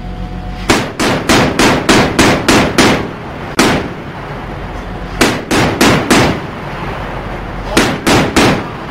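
Mark 38 Mod 2 naval deck gun firing in short bursts of sharp, evenly spaced shots, about three or four a second: a run of about eight shots, one lone shot, then two shorter bursts.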